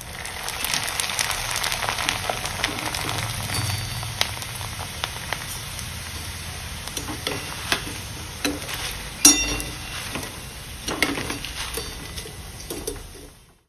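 Maize flakes deep-frying in oil hot enough to make them puff: a dense crackling sizzle, with a few sharp clinks of the wire spider strainer against the pan as they are stirred and lifted out. The sizzle eases off toward the end.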